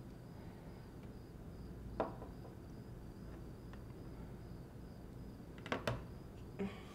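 Quiet room tone under a faint, evenly pulsing high chirp, with a sharp knock about two seconds in and two quick clicks near the end.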